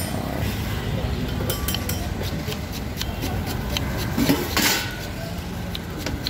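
Vegetables being grated by hand on a grater set in a steel bowl: scattered sharp clinks and taps of metal, and a short rasping scrape about four and a half seconds in, over a steady low street rumble.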